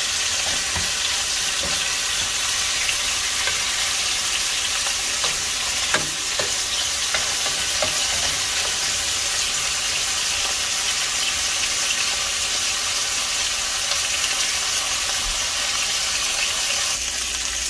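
Pork rib pieces sizzling steadily as they brown in hot oil in a pot, turned now and then with a wooden spoon, with a few light knocks about six seconds in.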